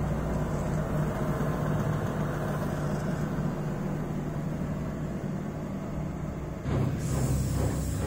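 Bosch front-load washing machine spinning its drum at high speed on a 1,000 rpm spin cycle, with a steady motor and drum hum. Near the end a louder, rapidly pulsing sound comes in.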